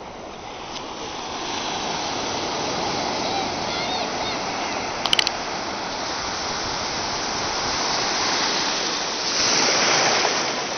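Ocean surf washing in over the sand: a steady rush of breaking, foaming water that grows louder over the first couple of seconds and swells loudest about nine seconds in as a wave splashes right at the microphone. A brief burst of sharp clicks about five seconds in.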